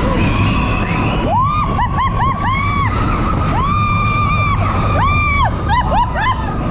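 Roller coaster riders screaming and whooping, a string of short and long cries that rise, hold and drop away, several overlapping, starting about a second in. Underneath is the steady low rumble of the Expedition Everest coaster train running on its track.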